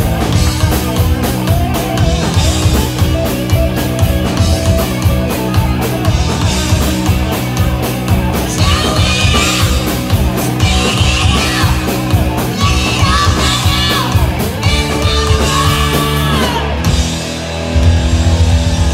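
Live rock band playing: electric guitars, bass guitar and drum kit, with a singer's voice over them in the middle. The band breaks off briefly near the end and comes back in with a heavier low end.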